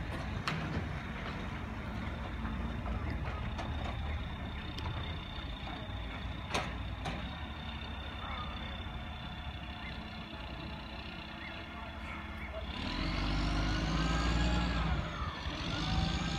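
Side-loader garbage truck's diesel engine running at a distance, with a few sharp knocks in the first half. Near the end the engine revs up and back down twice.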